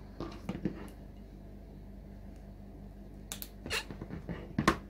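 A clear-vinyl and fabric pouch being handled on a cutting mat: a few short rustles and taps about half a second in, then a cluster of sharper ones near the end, the loudest just before it ends.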